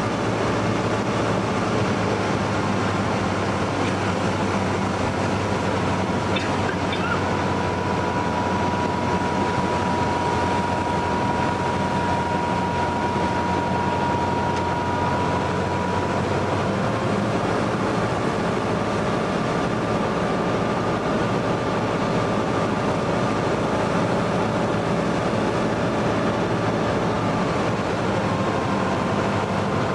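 Cabin noise of a Cessna 172N Skyhawk on final approach: its Lycoming O-320 four-cylinder engine and propeller running steadily under a rush of air. A thin steady tone sits over it from about a quarter of the way in until about halfway, and the engine note shifts a little past halfway.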